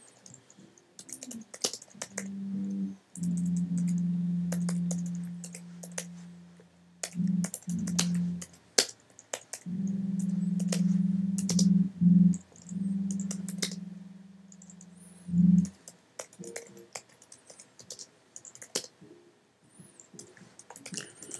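Typing on a computer keyboard, with irregular key clicks throughout. Under the typing for much of the time runs a low steady tone that shifts pitch a few times and stops about three-quarters of the way through.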